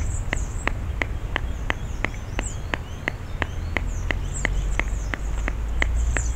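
Water dripping steadily into a shallow plastic-lined birdbath, short plinks about three a second, with faint high chirping above and a low rumble underneath.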